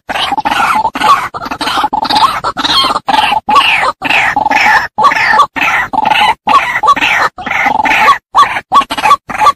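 White-breasted waterhen (ruak-ruak), a female's call, giving a fast, unbroken run of harsh, croaking calls, broken only by short gaps.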